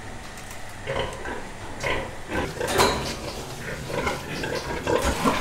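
Pigs in farrowing crates grunting and squealing in short irregular calls, with scattered metal clinks and knocks.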